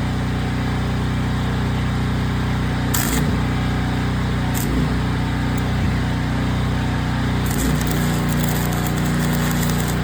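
Gasoline engine-driven welder running steadily. Short bursts of arc crackle come about three seconds in and again near the end, as a bracket is tack welded.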